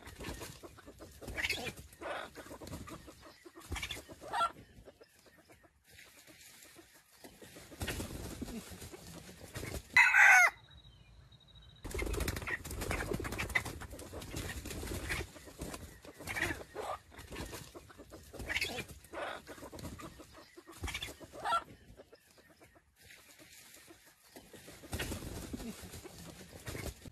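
Red junglefowl roosters clucking in short calls, with one short, loud crow about ten seconds in.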